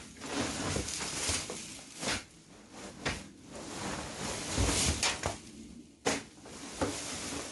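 A long-handled tool scraping and scooping old straw bedding and muck off a pen floor, with a few sharp knocks of the tool.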